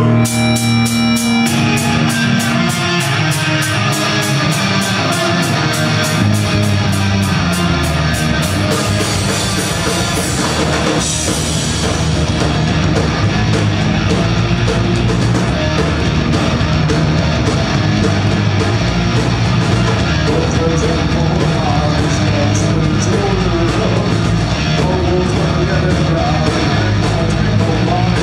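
Live rock band playing loud horror punk: distorted electric guitars over drums, with a steady fast beat of hits for roughly the first nine seconds before the full band fills in.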